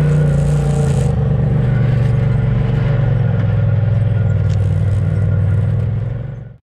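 UTV engine running steadily as the vehicle drives along a trail, holding a fairly even pitch with a slight shift about a second in. It fades out quickly near the end.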